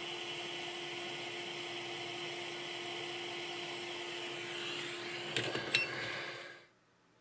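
Hot air rework station blowing at high airflow: a steady airy hiss with a fixed hum, used to desolder a power amplifier chip from a tablet motherboard. A few light clicks come near the end, then the air cuts off suddenly.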